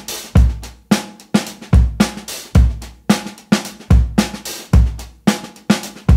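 Background music: a steady drum-kit beat of evenly spaced hits, about two and a half a second, with deep kick-drum thumps among them.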